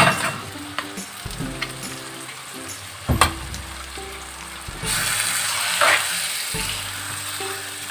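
Sliced onions and tomatoes sizzling in hot oil in a pan as a lump of ground roasted coconut paste is dropped in, with a couple of sharp knocks. About five seconds in, the sizzling grows louder as a metal spoon starts stirring the paste through.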